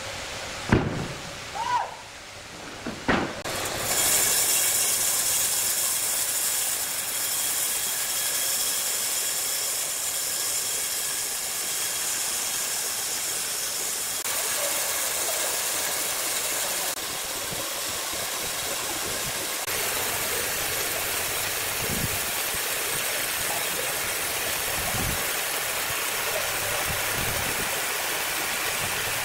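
Large horizontal band sawmill running with a steady high hiss that starts about four seconds in, after a few knocks of timber being handled.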